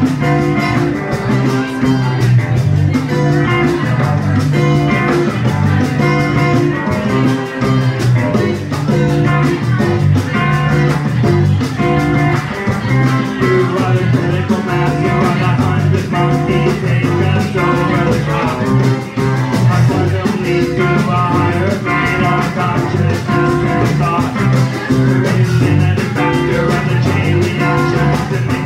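Live band playing a song with a steady beat, with acoustic guitar and a drum kit.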